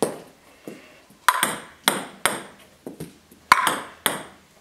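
Ping-pong balls being served: celluloid balls clicking sharply off the paddle and the table, a string of about eight hollow taps roughly half a second apart, some louder than others.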